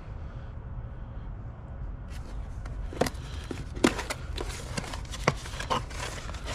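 Scattered light clicks and knocks of steering wheel hub parts being handled, over a steady low rumble.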